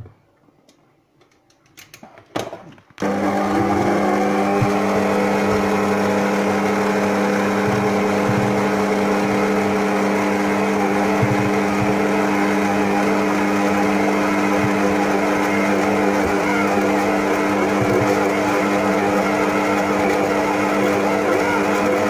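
Electric stand mixer switched on about three seconds in, its motor then running at a steady hum with a constant whine while the dough hook kneads dough in a stainless steel bowl. A few faint clicks come before it starts.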